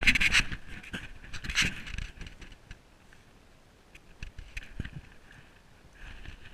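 Water splashing and slapping around a small aluminium boat, with scattered knocks on the hull. Loudest at the very start and again about one and a half seconds in, then quieter.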